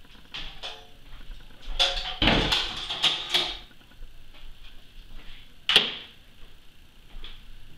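Objects being handled and set down, with footsteps on a wooden floor: scattered knocks and rustling, and a single sharp knock near the end as something is put down on a wooden desk.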